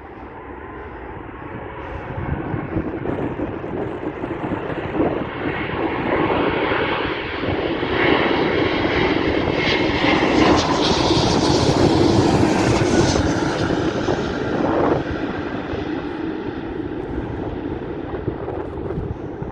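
Twin-engine Boeing 777-200ER on final approach to land, passing low overhead. The jet engine noise builds, is loudest with a high whine about halfway through, then fades as the airliner moves away.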